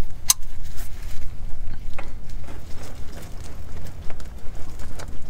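Scattered sharp metal clinks and taps of a 14 mm hex key and wrench being fitted onto a car's rear differential fill plug, over a steady low hum.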